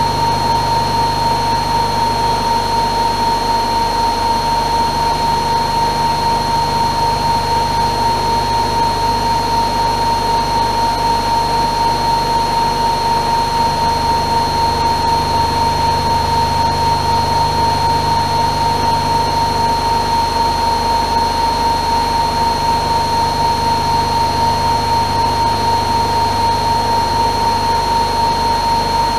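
AEG Öko-Lavamat Lavalogic 1600 washing machine spinning at high speed, its motor giving a steady high whine over the rush of the turning drum.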